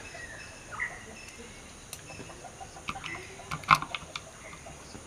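Screwdriver turning a screw to fasten a TO-3P power transistor onto a finned aluminium heat sink: a few small metallic clicks and scrapes, the loudest about three and a half seconds in. Faint short animal calls sound in the background.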